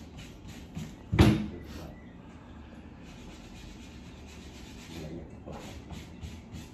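Hand-sanding the end of a wooden 4x4 post with a sanding block, in quick back-and-forth rubbing strokes about three a second. There is one sharp, loud wooden knock about a second in, and the strokes stop for a while before starting up again fainter near the end.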